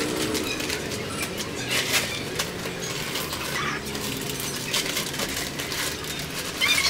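Plastic bag of potting soil crinkling and rustling as it is handled, with scattered light clicks.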